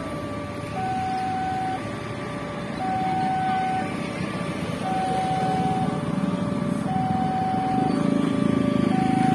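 Railway level-crossing warning alarm sounding a two-tone chime, a higher and a lower tone alternating, each held just under a second. Road traffic hums underneath, and a deep engine drone grows louder over the last couple of seconds.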